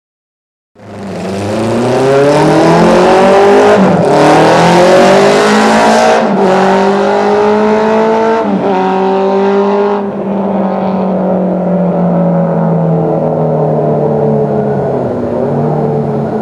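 Honda CB750 Four racer's air-cooled inline-four engine pulling hard, its pitch climbing, breaking briefly and climbing again three times as it shifts up through the gears, then backing off to steadier, lower revs in the last few seconds.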